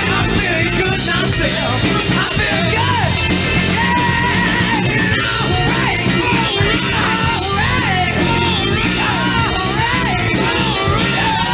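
Upbeat rock band music with a lead line that bends up and down over a steady band backing, without sung words.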